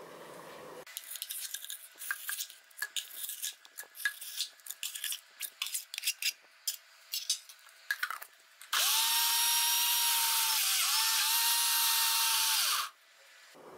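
Knocks and scrapes as lumps of half-frozen ice cream go into a plastic mixer-grinder jar. Then, near the end, the mixer grinder's motor runs for about four seconds churning the chunks. Its pitch dips briefly midway under the load before it stops.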